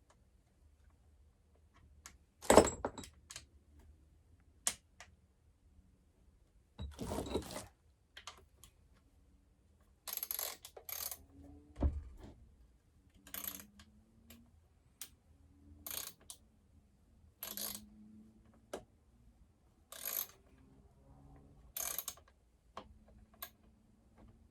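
Hand-work on a chainsaw's rubber anti-vibration mount and its threaded stud: a sharp metallic knock about two and a half seconds in, another clatter around seven seconds and a dull thud near twelve seconds. After that come short scraping strokes about every two seconds.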